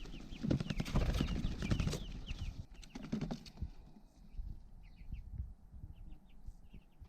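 Young chickens peeping in short high chirps, with a clatter of taps and knocks during the first three seconds or so.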